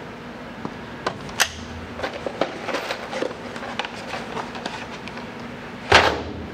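Scattered light clicks and knocks of parts being handled, then, about six seconds in, a louder knock as a cardboard box of blind rivets is set down on the sheet-aluminium panel. A steady low hum runs underneath.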